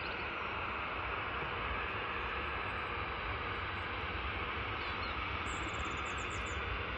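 Distant jet engines of a Ryanair Boeing 737 running at high power for takeoff, a steady, even roar. A bird gives a short run of high chirps near the end.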